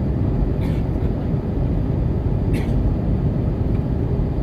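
Airplane cabin noise in flight: a steady low rumble of engines and rushing air.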